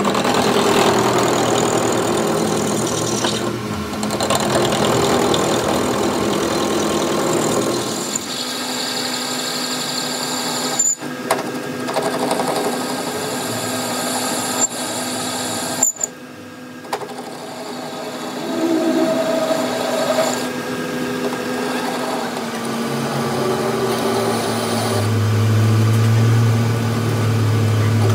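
Metal lathe running, its chuck spinning a steel shaft while a cutting tool faces the end of the shaft. The steady machine sound breaks off sharply twice, and a deeper hum grows louder near the end.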